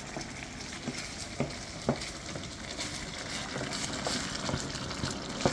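Rice and fish simmering and sizzling in broth in a nonstick pan while being stirred with a wooden spatula: a steady sizzle with a few scattered clicks and scrapes of the spatula against the pan.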